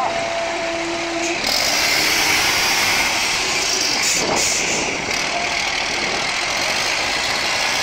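Diesel engine of an MAN trial truck running under load as the truck crawls over steep dirt mounds. The engine grows louder about a second and a half in and holds there.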